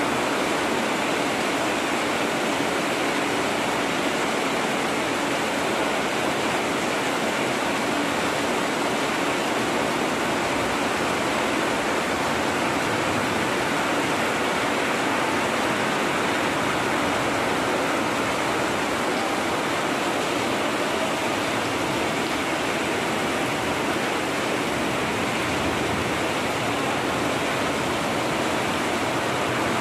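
Heavy rain falling steadily on a street and on corrugated metal roofs, with runoff streaming off the roof edges.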